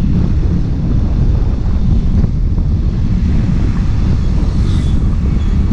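Wind buffeting the microphone of a motorcycle-mounted camera while riding, heard as a steady low rumble with the bike's road and engine noise mixed in.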